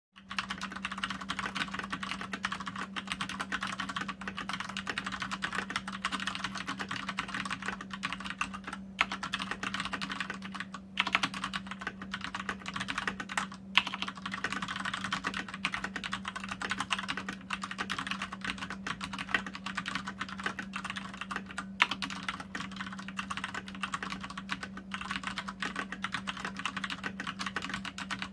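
Fast continuous typing on a Fnatic Gear Rush mechanical keyboard, at about 96 words per minute: a dense stream of key clacks with a few brief pauses and a couple of louder strokes. A steady low hum runs underneath.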